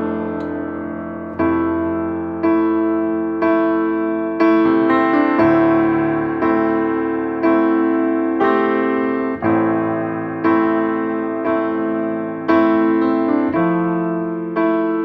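Background piano music: slow, steady chords struck about once a second, each ringing and fading before the next.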